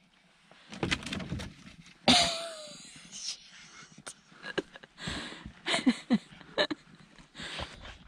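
A dog on a leash jumping down from a truck camper's doorway into deep snow: scuffing, knocks and rustling, loudest about two seconds in, then short crunching steps as it wades through the snow.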